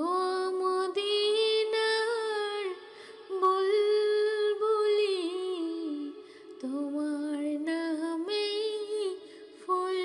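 A woman's voice singing a wordless melody of a Bengali gazal, long held notes with gliding pitch, in phrases broken by short pauses about three and six seconds in.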